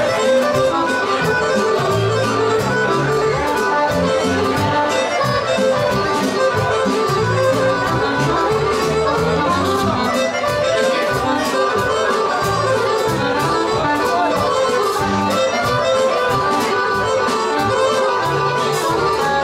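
Two Dallapè chromatic button accordions playing a lively instrumental lead-in, over a steady drum beat and a moving bass line.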